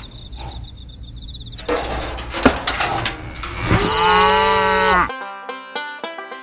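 A cow mooing once, one long call about four seconds in that rises, holds and falls away. Plucked-string music like a banjo starts suddenly right after it.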